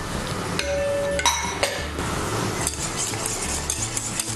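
Wire whisk in a metal saucepan of thickening flour-and-tahini sauce. A few ringing clinks of metal on the pan come about a second in, then from about halfway through a fast, even ticking and scraping of steady whisking, which keeps the flour from lumping.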